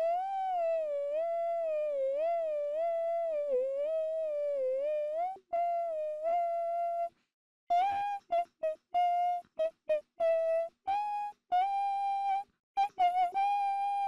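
A person humming a high-pitched wordless melody. It starts as a long note that wavers up and down for about five seconds, then holds one note, and after a short break turns into a string of short, clipped notes.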